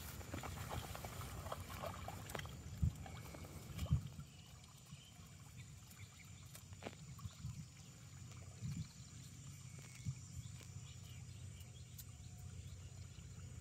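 Asian water buffalo heaving itself from its side onto its belly in a shallow mud wallow: wet sloshing and squelching with a few dull thumps in the first four seconds, then only faint occasional sounds.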